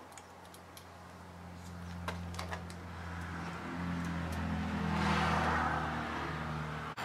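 A motor engine's low, steady hum, growing louder over the first five seconds or so, with a few light clicks a couple of seconds in from wires and the outlet being pushed into a metal electrical box.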